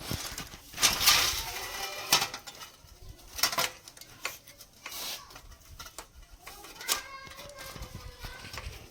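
Irregular metallic clicks, knocks and clatter of bicycle parts and hand tools being handled while the wheel and chain are refitted.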